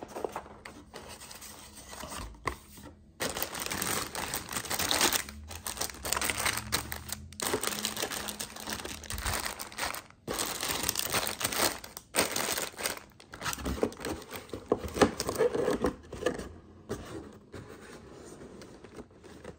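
Clear plastic bags holding model-kit parts runners crinkling and rustling as they are handled in their cardboard box, with small clicks of plastic and cardboard. The crinkling starts in earnest about three seconds in and dies down near the end.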